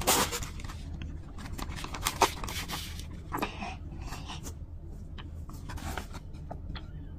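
Plastic zip-top bag crinkling and rustling as clear gel is squeezed from a plastic bottle into it, with several short crackles spread through.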